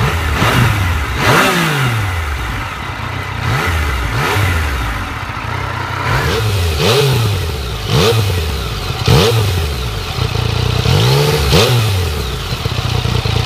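Yamaha MT-09 Tracer's three-cylinder engine free-revving in neutral. The throttle is blipped about eight times, each rev rising quickly and falling back to idle.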